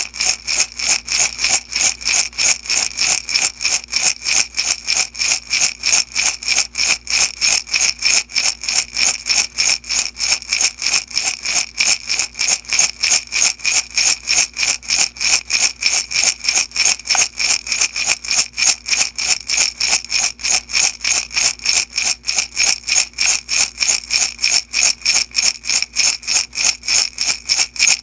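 Small beads shaken back and forth in a glass jar, rattling against the glass in a steady, even rhythm of about three shakes a second.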